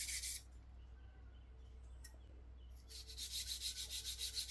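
Toothbrush scrubbing a refrigerator part in rapid back-and-forth strokes, about six or seven a second. The scrubbing runs briefly at the start, pauses, then starts again about three seconds in.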